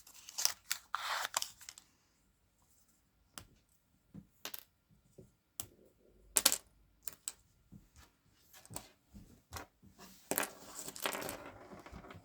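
Candy and gum packaging being handled by hand: bursts of wrapper crinkling at the start and again near the end, with scattered sharp clicks and taps between.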